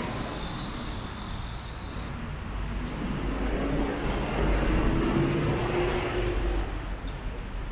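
Road traffic at a busy intersection: a steady low rumble of engines and tyres, with one vehicle passing close by. Its sound swells to a peak about five seconds in and then fades.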